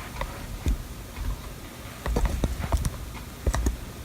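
Irregular light knocks and clicks with a few dull thumps, like footsteps and handling noise while someone moves about and repositions the camera. They cluster about halfway through and again near the end.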